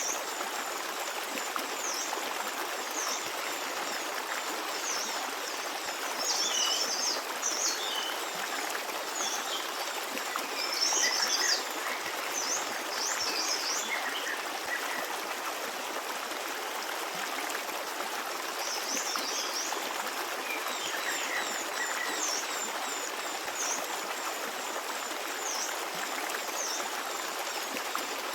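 A forest stream running steadily over rocks, with small songbirds chirping in short bursts, busiest about a third of the way in and again past the middle.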